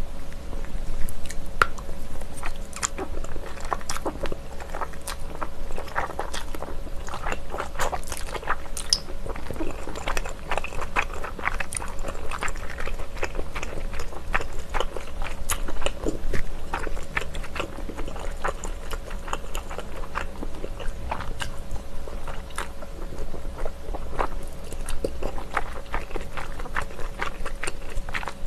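Close-miked eating of chewy Chinese glass noodles in a cold sauce: a continuous run of wet chewing and slurping mouth sounds, made up of many short clicks.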